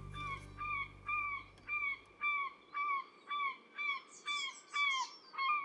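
A bird-like honking call repeated about twice a second, roughly eleven times, while the closing music fades out underneath in the first couple of seconds.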